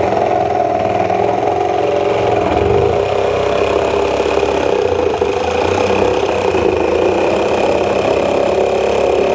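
Power tool running steadily while cutting a hole in a bear-bait barrel.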